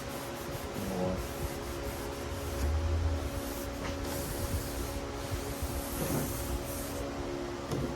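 Scrubbing and rubbing old adhesive residue off a track-saw guide rail, a steady scratchy rubbing with short strokes.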